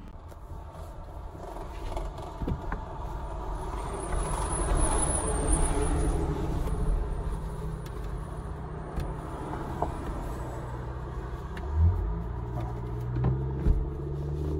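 Handling noise of a fabric CD visor organizer being fitted onto a car's sun visor: rustling, scattered clicks, and two sharp knocks near the end, over a steady low rumble in the car cabin.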